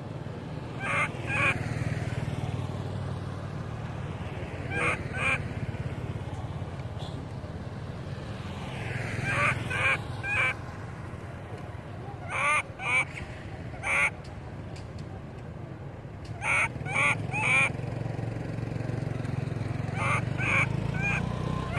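Long-tailed macaque crying: short, high-pitched squealing calls in clusters of two or three, repeating every few seconds.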